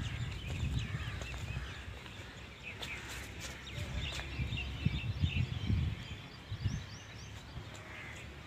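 Small birds chirping again and again in quick, short calls, over low, irregular thumps and rumble that are loudest about five to seven seconds in.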